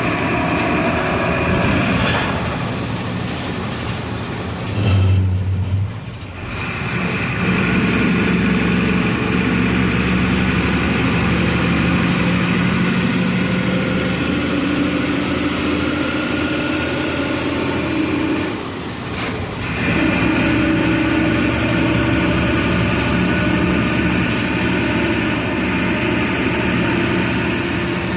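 Volksbus 17-230 EOD bus's diesel engine pulling under load, its revs gradually rising. The engine sound drops away briefly twice, about six seconds in and again about nineteen seconds in, as gears are changed. A brief louder low note comes about five seconds in, just before the first drop.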